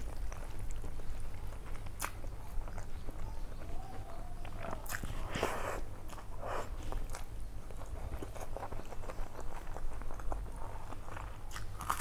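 Close-miked eating sounds: a person chewing mouthfuls of rice and dal eaten by hand, with irregular wet smacks and clicks, and fingers mixing rice on a steel plate.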